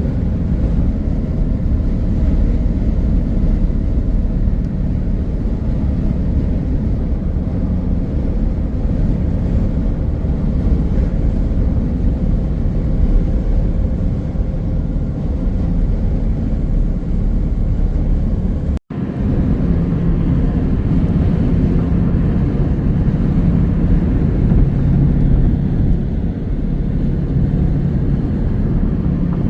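Steady low rumble of a car being driven, engine and tyre noise, cut off for an instant about two-thirds of the way through before carrying on the same.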